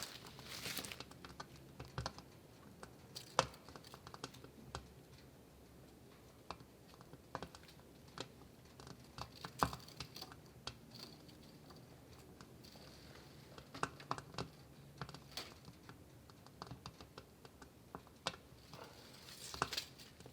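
Scattered light clicks and taps from a tape measure and wooden planks being handled while the boards are measured, with two louder knocks, about three seconds in and near ten seconds.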